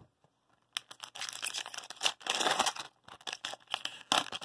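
Foil wrapper of a 2019-20 Tim Hortons Hockey card pack being torn open and crinkled by hand. The crackling starts about a second in and breaks off briefly around three seconds before going on.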